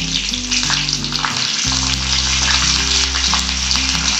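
Hot oil sizzling and crackling in a steel kadai as cumin seeds, curry leaves and slit green chillies fry for a tadka. A wooden spatula stirs them near the end. Background music plays underneath.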